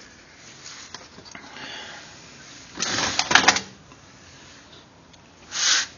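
Bench handling noise: a quick cluster of clicks and clatter about three seconds in, then a short rustle near the end, as the monitor and its power cord are handled before power-up.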